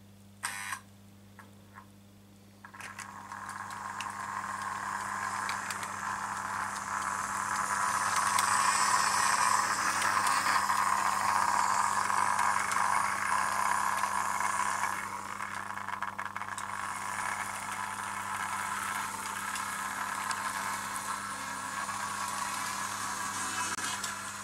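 Märklin H0 model locomotive running on metal M-track, its electric motor and wheels giving a whirring rattle. It builds up from about three seconds in, is loudest in the middle of the run, then eases off a little. A steady low hum runs underneath, and there is a short click about half a second in.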